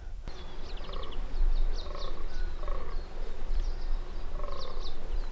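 Fallow deer buck croaking over and over, the rutting call of a fallow buck, over a steady low rumble.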